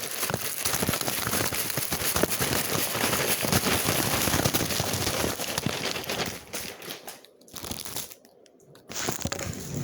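Plastic packets of foam Nerf darts crinkling and rustling as they are heaped up, a dense crackle that thins out about six and a half seconds in, with two short pauses before it picks up again near the end.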